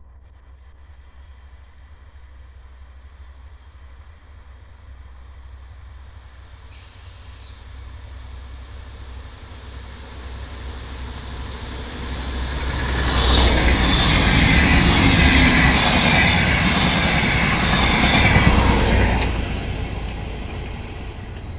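A DR1AM diesel multiple unit, two sets coupled, approaches and passes through at speed without stopping. It builds from a distant rumble to a loud roar of wheels and engines about thirteen seconds in, then drops away about six seconds later.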